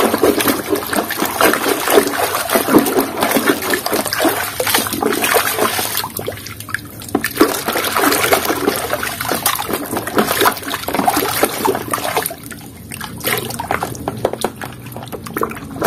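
Muddy water sloshing and splashing in a basin as a hand swishes and scrubs a toy pistol under the surface, irregular and busy, easing off briefly twice.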